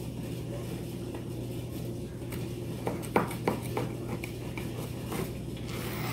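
Serrated bread knife sawing through a loaf of freshly baked quick bread on a plastic cutting board, with a few sharp clicks a little past halfway, over a steady low hum.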